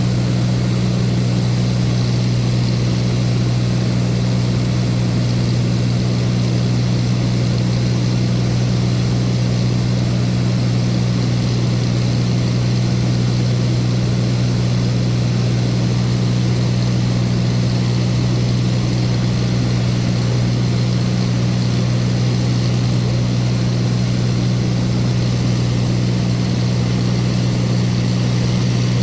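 Light propeller aircraft's engine running steadily, heard from inside the cabin as a constant low hum that holds one pitch throughout, over a wash of airflow noise.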